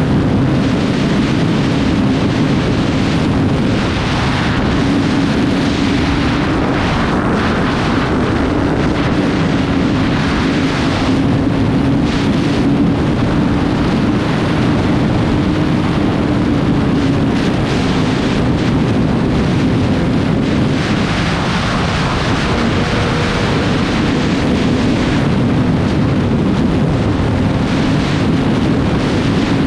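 Heavy wind rushing over the microphone on a Yamaha R6 at riding speed, with the bike's inline-four engine running underneath at fairly steady revs, its pitch drifting slightly up and down.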